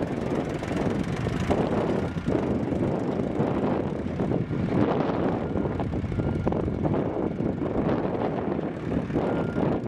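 Mahindra 4530 tractor's 2.4 L three-cylinder diesel engine running steadily while the tractor is driven about.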